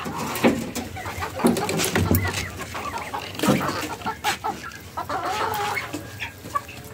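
Flock of domestic chickens clucking, a busy run of short calls, with scattered knocks among them.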